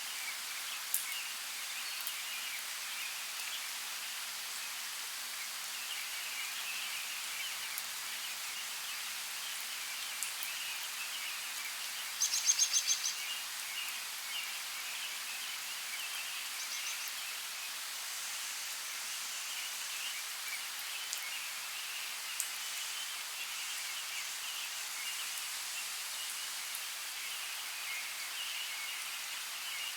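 Light rain falling in a forest: a steady hiss with a few scattered drops, and birds twittering in the background. About twelve seconds in, a bird gives a short, loud, rapid trill.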